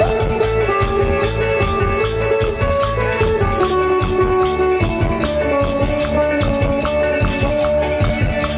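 Latin dance music with a shaker and drums keeping a steady beat under a bass line and a melody of long held notes.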